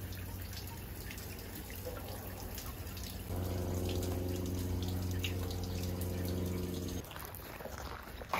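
Water trickling from a bamboo spout into a stone shrine purification basin. About three seconds in, a steady low hum starts suddenly, the loudest sound here, and cuts off abruptly about three and a half seconds later.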